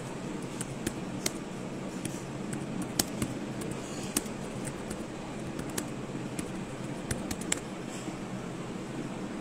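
Steady low room hum with scattered sharp clicks and taps at irregular moments, about a dozen in all.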